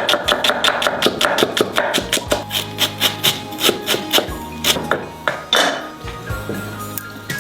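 Rapid knife chopping on a cutting board, about five even strokes a second, over background music. The chopping stops about five seconds in, followed by a brief scrape, and then only the music continues.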